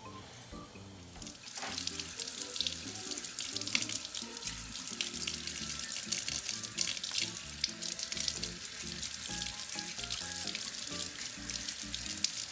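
Kitchen tap running into a sink, the stream splashing as a crab is scrubbed under it with a brush. It starts about a second and a half in, with background music underneath.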